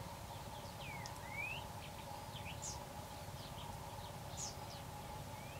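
Small birds chirping and calling, with short sliding whistles and quick high chirps scattered throughout, over a steady low background hum.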